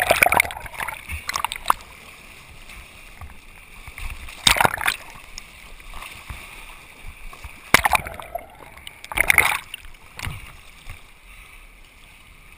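Sea water splashing and sloshing over a camera at the surface as small waves wash across it, going under and coming back up. There are loud splashes at the start, around four and a half seconds, and twice more around eight and nine seconds, with a quieter wash in between.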